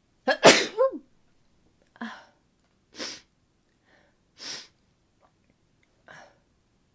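A woman sneezes once, loudly, about half a second in; the sneeze ends on a high-pitched voiced tone that slides down. Four short, quieter breaths follow at intervals.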